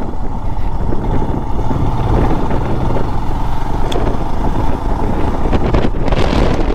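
Motorcycle on the move, its engine running under a steady rush of wind on the microphone, with a brief louder rush about six seconds in.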